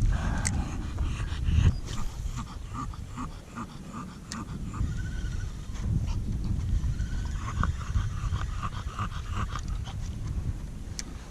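Bulldog panting in quick, even breaths, about two or three a second.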